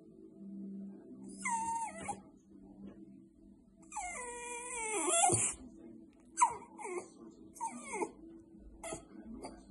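Border Terrier whining and whimpering to be fed: a string of high cries that slide down in pitch, the longest and loudest about four seconds in, followed by several short whimpers.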